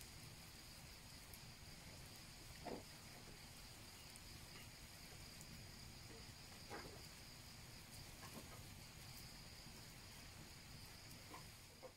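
Faint, steady high-pitched drone of insects such as crickets, with a few soft pops, likely from the wood campfire burning under the pot.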